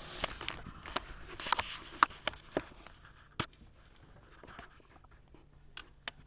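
Scattered small clicks and light scratchy rustling, busier in the first few seconds, with one sharper click about three and a half seconds in.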